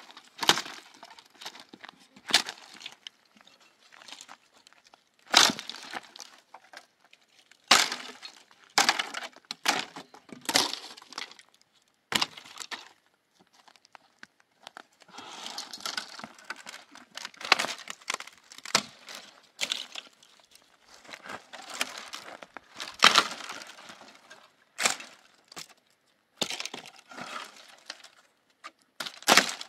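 A series of sharp cracks and knocks at irregular intervals, with stretches of rustling between them, as of objects being handled or broken.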